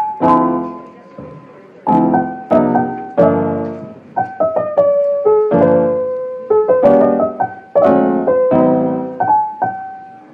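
Background piano music: a gentle melody over struck chords, each note ringing and fading before the next.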